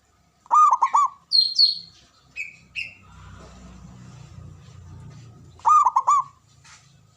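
Zebra dove (perkutut) cooing, a quick run of three or four pitched notes just after the start and again about six seconds in. Between the two runs, other birds give higher, short chirps, and a low rumble rises in the middle.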